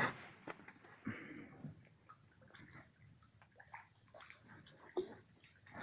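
Night crickets trilling steadily at several high pitches at once, with scattered faint clicks and knocks underneath.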